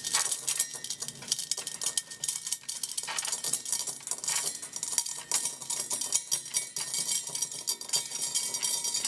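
Thick nickel-plated metal bead chain rattling in a continuous, dense clatter as it pours itself up over a cup's steel rim and falls away in a chain fountain (the Mould effect).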